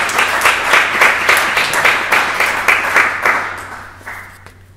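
Audience applauding, many hands clapping densely, dying away from about three seconds in and stopping about four seconds in.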